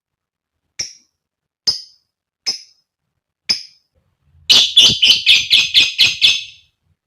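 Female lovebird calling: four short, sharp, high calls about a second apart, then a rapid run of about ten calls lasting two seconds.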